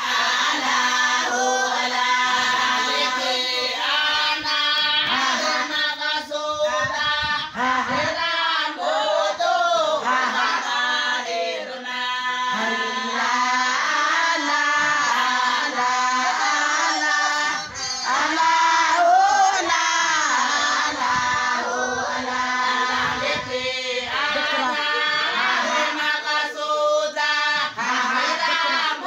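A group of women singing a Somali Bantu song together in chorus, many voices over a steady held low note.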